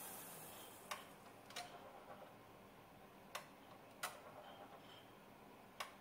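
Heating burner's steady rushing noise fading out, then faint sharp ticks at irregular intervals, about five of them.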